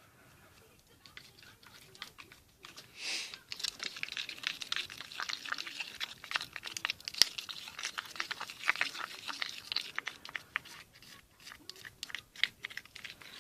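Homemade hand-soap slime being squished and worked by hand: a dense run of quick, irregular sticky crackles and clicks, starting about a second in, with a short wet squelch near three seconds.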